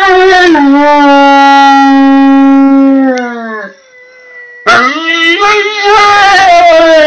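Dogo Argentino howling: two long howls. The first falls at its start, holds a steady pitch, then tails off about three and a half seconds in. The second begins about a second later with a wavering pitch.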